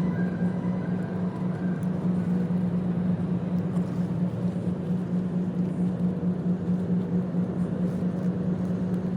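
Boat engine running at a steady speed, a constant droning hum.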